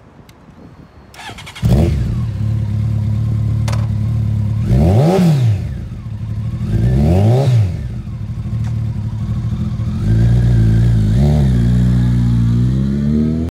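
Honda CBR1100XX Blackbird's inline-four engine through an aftermarket stainless steel exhaust, starting about a second and a half in and settling to a steady idle. It is revved twice, each rev rising and falling in pitch, then runs at a slightly higher, changing pitch as the bike pulls away near the end.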